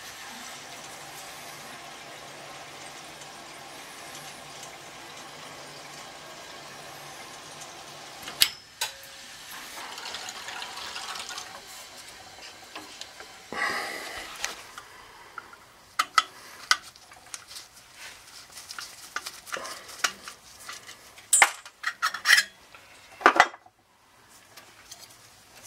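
Water hissing steadily through the heating pipes and drain hose as the loop is purged. From about a third of the way in, it gives way to a run of sharp metal clicks and knocks as the valves and fittings are handled.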